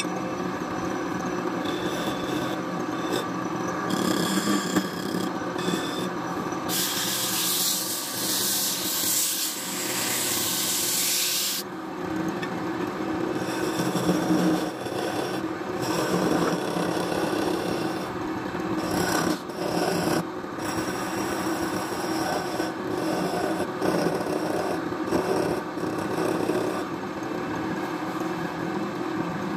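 Wood lathe running with a steady hum while a hand-held turning tool scrapes and cuts the spinning wooden cup, with a continuous rasping of steel on wood. About seven seconds in, the cut turns to a louder hiss for four or five seconds.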